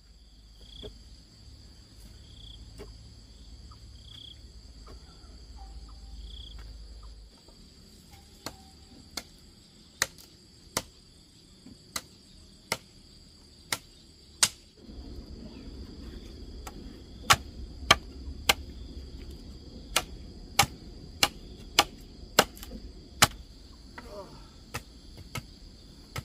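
Repeated sharp tool strikes, starting about a third of the way in and coming roughly one or two a second with a short pause in the middle. Insects chirr steadily throughout.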